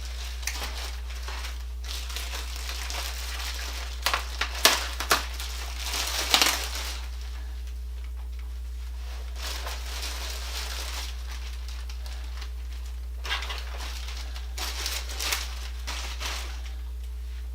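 Heavy packing tape being peeled and torn off the parts, with plastic wrapping crinkling, in bursts. The loudest sharp rips come around four to six and a half seconds in.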